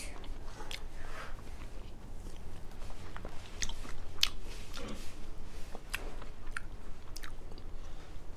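Close-miked chewing and mouth sounds of a person eating edamame beans, with scattered sharp clicks.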